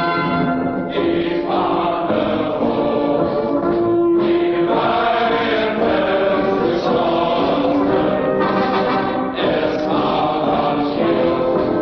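A national anthem played as broadcast music: a choir singing held notes in phrases over an orchestra.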